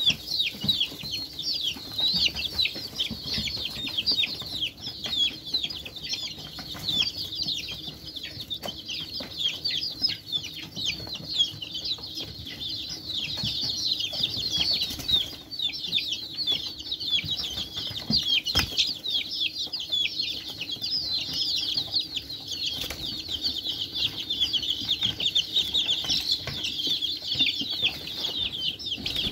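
A brood of young chicks peeping all together, a dense, unbroken chorus of short, high, falling cheeps.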